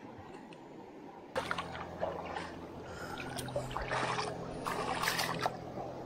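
Shallow river water trickling and splashing, with irregular sharp splashes. A steady low hum comes in about a second in and carries on.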